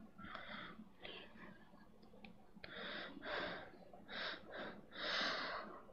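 A girl breathing close to a headset microphone: a series of about seven short, faint breaths as she draws breath between phrases of Quran recitation.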